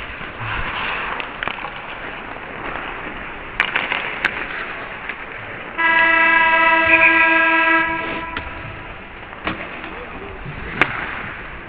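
Arena horn giving one steady blast of about two seconds, cutting in suddenly past the middle. A few sharp knocks of sticks and puck on the ice come before and after it.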